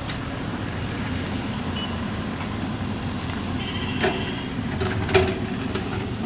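A heavy construction machine's diesel engine running steadily, with sharp metallic knocks about four seconds in and again just after five seconds, the second the loudest.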